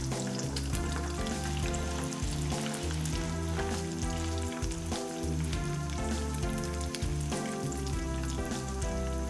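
Oil sizzling steadily as breaded, chicken-stuffed green chilies deep-fry in a small pan, under background music of held notes.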